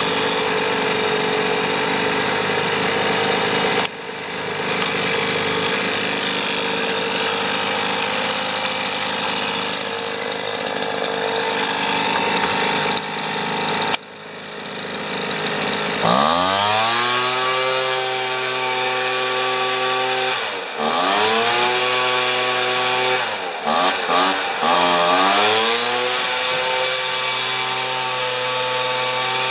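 Weed Eater leaf blower's small two-stroke engine running during a carburetor tune-up. Its sound drops off sharply twice in the first half, then the revs climb quickly and hold high, falling away and picking up again twice near the end.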